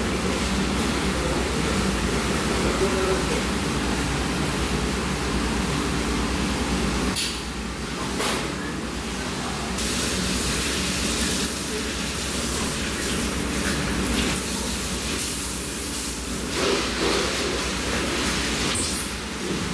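Steady rushing background noise with faint voices in it; the noise thins and changes character about seven seconds in.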